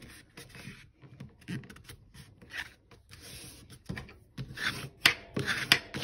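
Heavyweight mixed-media paper being folded by hand, rustling and scraping as the card is moved and the folds are pressed down, with a few sharp clicks near the end.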